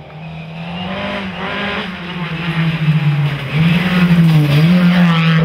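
Ford Escort Mk2 rally car's engine at hard throttle, heard from inside the cabin. The revs rise and dip repeatedly and the engine grows much louder over the first few seconds.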